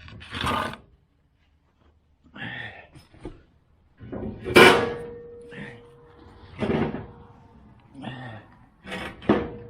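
A series of metal clanks and knocks as jacking gear is set in place under a car. The loudest clank, about four and a half seconds in, leaves a ringing tone for a couple of seconds, and another clank near the end rings briefly.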